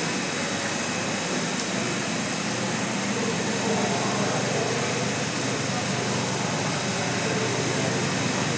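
Centrifugal pump and its electric motor running steadily, with water discharging into the measuring tank of the test rig as the level in it rises.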